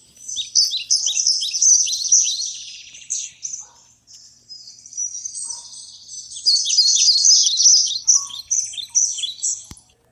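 Songbirds chirping and twittering in rapid high notes, in two long dense bursts with a thinner stretch between them.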